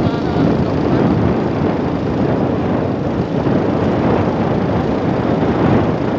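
Steady riding noise of a motorcycle on the move: wind rushing over the microphone, mixed with the engine running.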